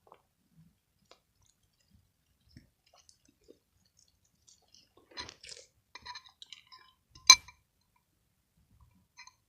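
Homemade slime being squeezed and pressed in the hands: scattered soft wet squelches and clicks, with one loud sharp pop a little past the middle.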